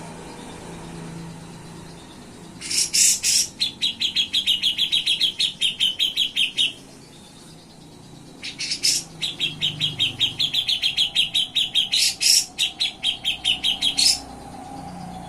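Grey-cheeked bulbul (cucak jenggot) singing in two bursts, each opening with a few sharp, loud notes and running on into a rapid trill of repeated high notes lasting a few seconds.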